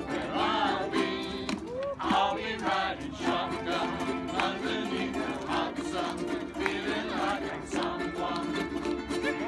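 A group of ukuleles strumming chords together, with several voices singing over them.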